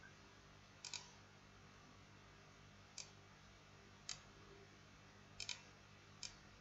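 Faint computer mouse clicks, six in all, two of them coming as quick double clicks, over a low steady hum.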